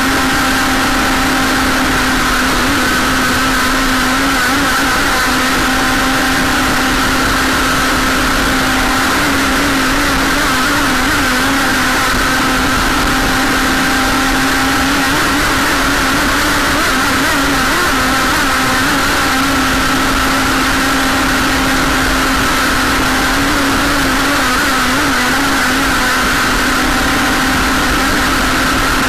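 Radio-controlled Jersey skiff's motor running steadily at speed, heard up close from on board, with a steady hum that wavers slightly in pitch now and then, over water hissing along the hull.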